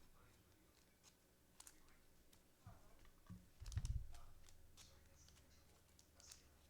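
Very quiet handling of trading cards: faint scattered clicks and slides as cards are flipped through, with one low, brief thump about four seconds in.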